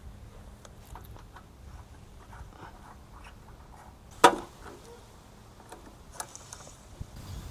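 Light clicks and taps of hand work on a lawn mower, with one sharp knock about four seconds in, over a low steady hum.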